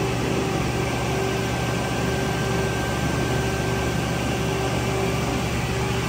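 Haas ST-20Y CNC turning center running behind its closed door, with coolant spraying against the door window: a steady mechanical hum and spray noise, with a faint high whine and a mid-pitched tone that comes and goes.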